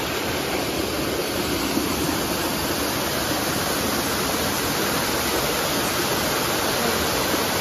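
Small waterfall pouring over rocks into a shallow stream: a steady rush of water.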